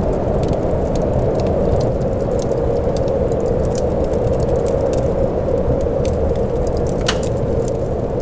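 Steady rain, an even hiss with scattered sharp ticks of drops.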